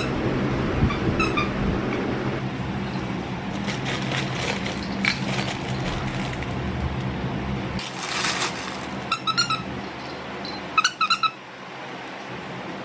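Squeaky dog toy squeezed by hand, giving a short high squeak about a second in and two more pairs of squeaks later on, with light scattered clicks in between. A steady low hum runs underneath and stops a little past halfway.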